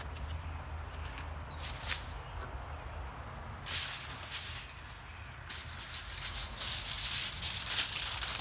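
Heavy-duty aluminium foil crinkling and crackling in irregular bursts as a rack of pork spare ribs is wrapped, the bursts growing denser in the second half.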